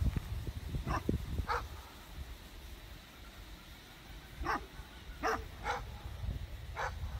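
A dog barking in short single barks, about seven of them: a few in the first two seconds, then a bunch of four from about four and a half seconds on, over a low rumble.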